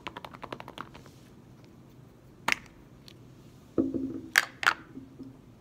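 A plastic toy clicking rapidly, about a dozen clicks a second for a second, as it is twisted. Then sharp plastic clicks and a knock as the toy poop capsule is opened and a small figure drops onto the tabletop, with a low steady hum in the second half.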